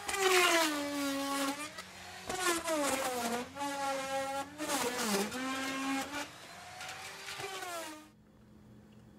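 Handheld Dremel-style rotary tool running at high speed, its whine dropping and recovering in pitch several times as the bit is loaded cutting and filing down the plastic inlet of a raw water strainer. It stops about eight seconds in.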